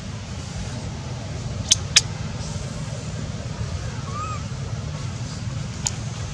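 Steady low outdoor rumble, with two sharp clicks close together about two seconds in, a fainter click near the end, and a faint short chirp midway.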